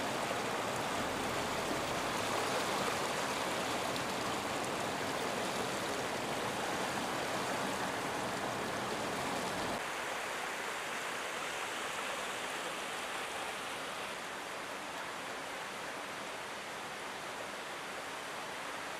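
Floodwater rushing along a street, a steady rush of water. About ten seconds in the deep rumble drops away and the rush turns lighter and thinner.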